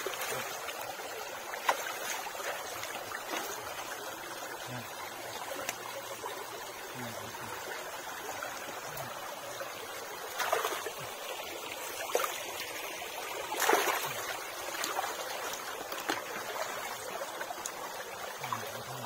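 Shallow stream water trickling and running steadily, with a few splashes as hands and legs move through it, the loudest about two thirds of the way through.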